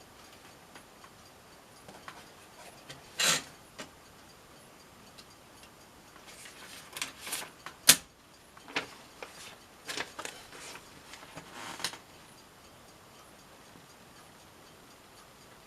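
Smith-Corona Galaxie Twelve manual portable typewriter working: irregular mechanical clacks and clicks, a few on their own and then a busier run in the middle with one sharp, loud clack, before it falls quiet.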